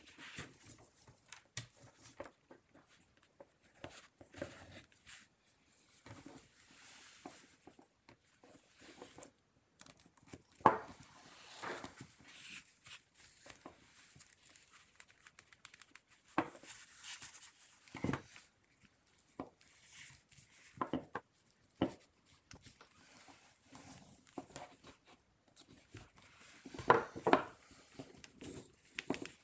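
Hands handling and tying a tassel of leather strips onto a wooden handle: leather rustling with scattered small taps, a few of them louder.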